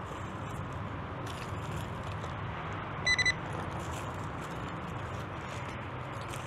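Metal detector beeping: one short, high beep stuttering in three quick pulses about three seconds in, over a steady low hum.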